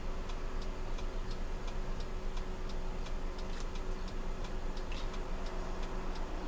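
Car turn-signal or hazard indicator ticking evenly, about three clicks a second, over a steady low hum inside the cabin.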